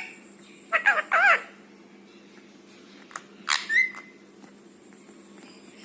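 Rose-ringed (ringneck) parakeet calling: a short warbling call about a second in, then a sharper squawk that ends in a brief held whistle-like note at about three and a half seconds.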